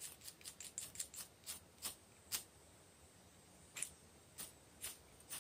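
Steel striker scraped again and again down a ferro rod (fire steel), throwing sparks onto magnesium shavings and tinder: a quick run of short, sharp scrapes over the first two seconds or so, then a pause and four slower strikes.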